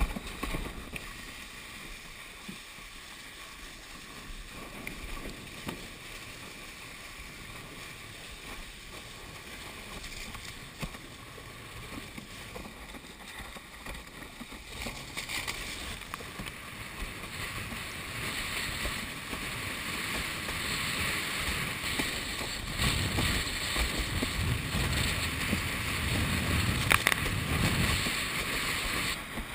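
Rushing water and wind buffeting the microphone as a windsurf board planes across choppy water, with spray hissing off the hull. The rush grows louder about halfway through and stays strong toward the end.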